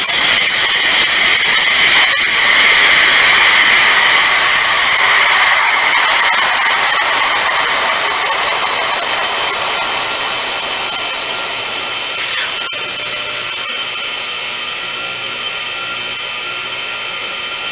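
Compressed air hissing out of the open drain valve on an air brake system's supply reservoir, loud at first and slowly fading as the tank empties. Later, as supply pressure falls to about 60 PSI, the low-air warning buzzer comes on as a steady tone under the hiss.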